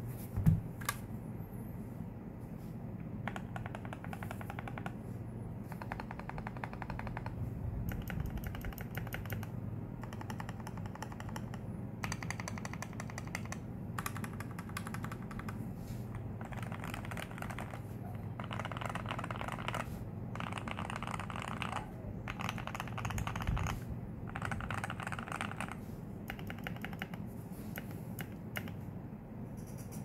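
Jargo TKL mechanical keyboard with hand-lubed Outemu Milk Peach switches, PBT keycaps and foam and tape mods, typed on in fast bursts of one to two seconds of clacking with short pauses between. A single loud thump comes about half a second in.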